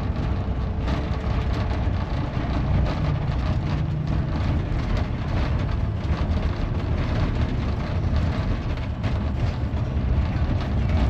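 Steady rumble of a moving tour coach, engine and road noise heard from inside the cabin.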